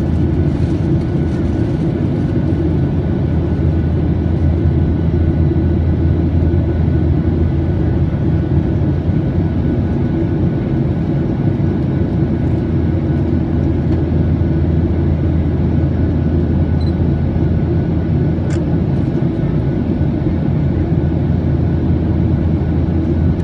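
Steady cabin noise of a Boeing 737-700 in the climb after take-off: the low, even roar of its CFM56-7B turbofan engines and airflow over the fuselage, with a faint steady whine above it.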